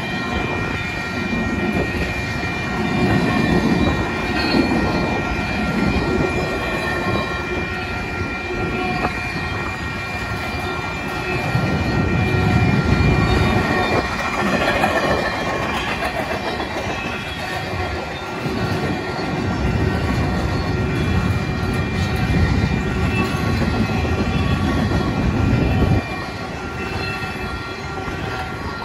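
Freight train of container well cars rolling past a grade crossing: steady wheel-on-rail rumble with clicks over the rail joints. A steady high ringing from the crossing's warning bell runs through it. The rumble drops away near the end as the last car passes.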